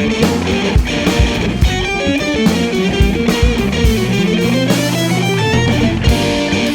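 Instrumental band music: electric guitar over bass and drums, with a rising run of notes and a held low bass note about midway through.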